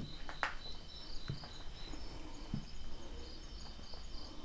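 Night insects chirping in a steady, rapid high-pitched pulsing, with a few soft knocks from movement.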